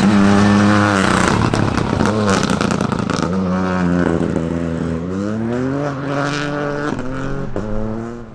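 Ford Fiesta rally car's engine driven hard, revving up and dropping several times as the car accelerates, lifts and changes gear through a tight section. A scatter of sharp cracks comes in the first few seconds and again near the end.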